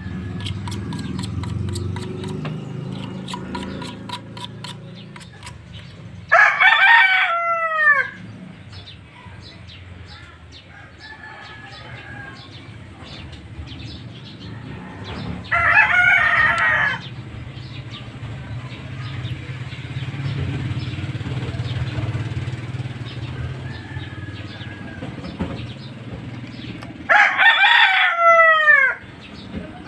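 A rooster crowing three times, each crow under two seconds long and spaced several seconds apart, over a low steady rumble.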